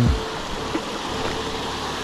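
Steady rush of water running over a river spillway.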